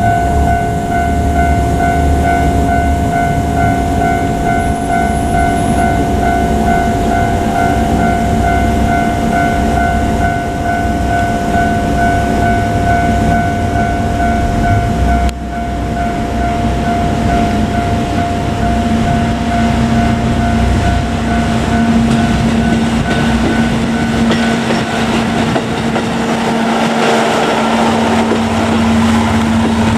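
Japanese level crossing alarm ringing with a steady, repeating electronic tone while a KiHa 200 diesel railcar runs. Near the end the alarm fades out as the railcar's diesel engine and wheel noise grow louder.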